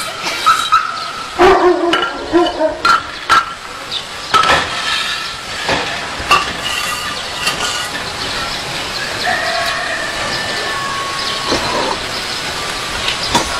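Clay bricks set down one after another on a concrete slab: a run of sharp knocks and clacks over the first seven seconds or so, then fewer.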